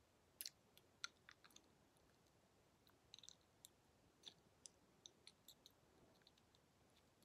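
Near silence: faint room tone with a scattering of small, irregular clicks.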